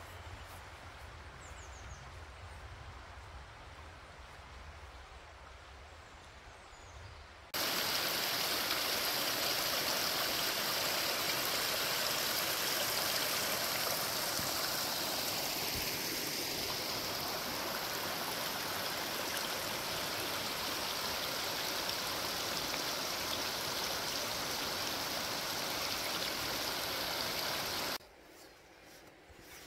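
A small woodland brook running and splashing in little cascades over mossy rocks, heard close up as a steady rushing. It starts abruptly about seven seconds in, after a quieter stretch, and cuts off just before the end.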